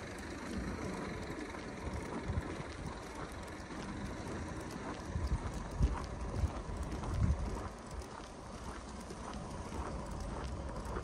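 Footsteps crunching in snow, with a few heavier low thumps near the middle, over a steady outdoor hiss.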